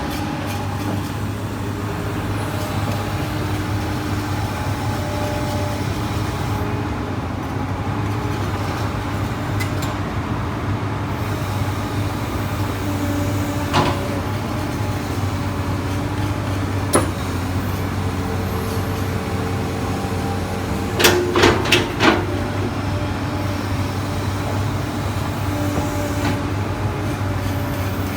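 Komatsu PC200 hydraulic excavator's diesel engine running steadily under digging load, with tones above it that shift in pitch as the hydraulics work. Sharp knocks come once about halfway through, again a few seconds later, then as a quick run of four about three-quarters of the way in.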